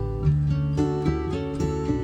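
Background music: acoustic guitar strumming chords at a steady rhythm.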